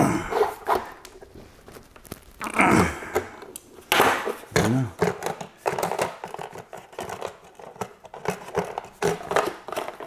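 Plastic and foam retail packaging of an AMD Ryzen Threadripper processor being wrestled with by hand: irregular crinkling, scraping and clicking of plastic in fits and starts as the trapped processor is worked loose.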